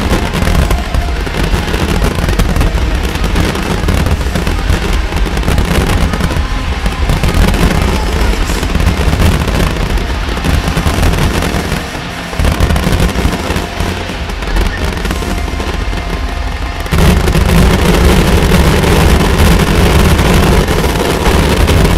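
Fireworks firing in rapid succession: dense pops, crackle and booms from shells, comets and fountains, over a music soundtrack. Brief dip about twelve seconds in, then a louder, heavier barrage from about seventeen seconds.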